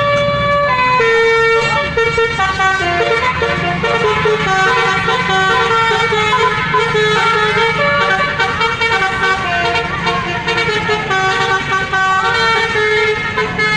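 Multi-tone telolet bus horn playing a fast tune of stepped notes, one chord changing to the next, with the bus engine running underneath.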